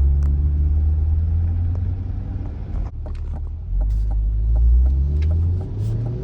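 C8 Corvette's V8 engine rumbling as the car rolls along slowly, easing off about midway and then rising in pitch near the end as it picks up speed, with scattered light clicks over it.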